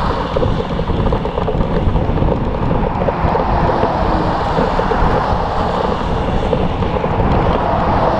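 Steady rush of wind buffeting a bike-mounted action camera's microphone while cycling, mixed with the rumble of road traffic passing.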